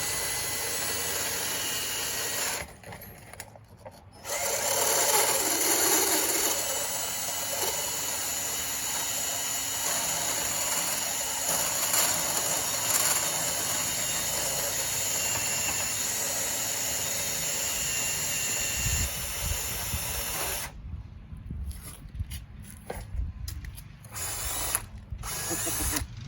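Drill spinning a grinding point on a DeWalt right-angle extension, grinding rust off the inside of a trailer hitch receiver tube. A short run and a brief pause come first, then a long steady run of about sixteen seconds, then short bursts near the end.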